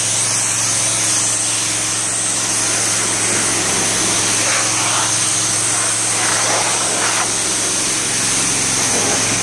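Pressure washer running steadily: an engine's constant low hum under the hiss of high-pressure water spraying onto concrete.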